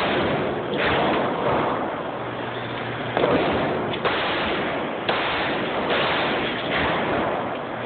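Repeated .22 gunshots, about six shots irregularly spaced roughly a second apart, each with a reverberating tail.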